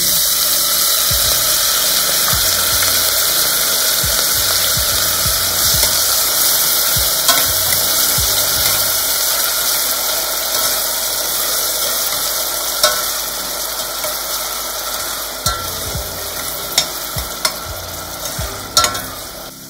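Chopped onion frying in hot oil in a stainless steel pot: a loud sizzle that starts as the onion goes in and slowly eases. A metal spoon stirs and clinks against the pot, more often near the end.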